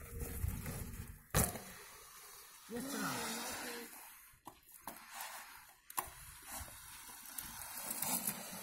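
Faint sounds of a mountain bike on ice: a sharp knock about a second and a half in and another near six seconds, with a short wavering tone around three seconds, over a faint steady hiss.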